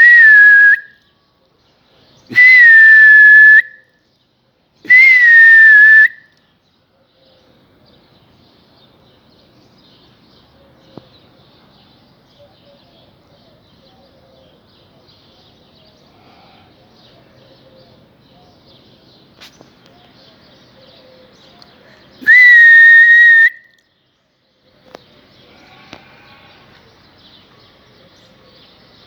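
Loud, shrill whistling on one steady high note, each whistle held about a second: three in the first six seconds and a fourth some twenty seconds later. It is a pigeon keeper's whistle calling his flock to fly.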